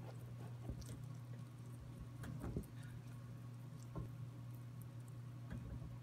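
Domestic rabbit chewing fresh leafy greens: faint, scattered crunching clicks, with a short cluster of crackles about two and a half seconds in and a single click at about four seconds, over a steady low hum.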